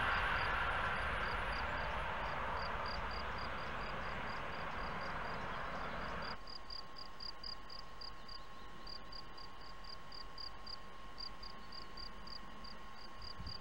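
High-speed train's rushing noise fading away as it recedes, cut off about six seconds in. After that there is only an insect chirping in a fast regular pulse, about three to four chirps a second.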